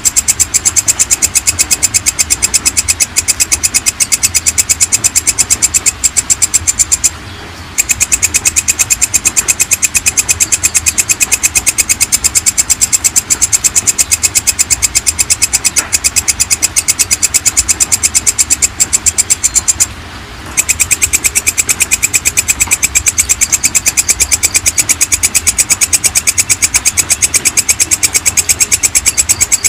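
Belalang kecek (walang kecek) katydid calling: a continuous, high-pitched train of rapid, evenly spaced clicking pulses. It breaks off briefly twice, about a quarter of the way in and about two-thirds of the way in.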